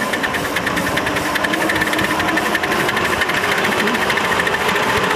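A 5-inch gauge live-steam locomotive under way, its exhaust beating in a fast, even rhythm.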